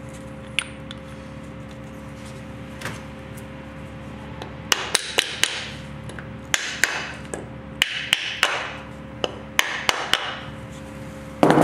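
Sharp metallic knocks and clinks in quick clusters, starting about five seconds in, with one heavier knock near the end, as a motorcycle shock absorber and tools are handled against a sheet-metal workbench. A faint steady hum runs underneath.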